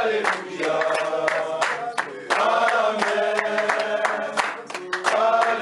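A group of men singing a chant together, clapping their hands along with it.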